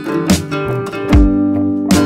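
Background music: acoustic guitar strumming chords in a steady rhythm, with low thumps on some beats.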